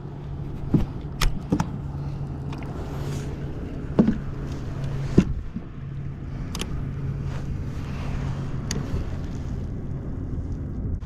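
A motor's steady low hum over wind and water noise, with several sharp clicks and knocks scattered through it.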